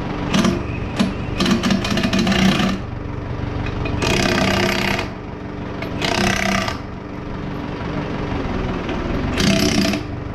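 Impact wrench hammering in repeated short bursts of about a second each, driving bolts at a tractor's rear wheel hub, over a steady engine idle.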